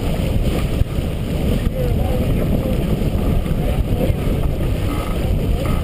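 Wind buffeting the microphone over water rushing and splashing along the hull of a T-10 racing sailboat under sail.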